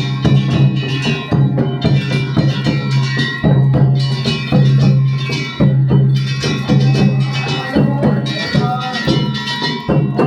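Festival music with drum and wood-block strikes in a brisk, steady rhythm over a constant low hum, with sustained ringing higher tones above.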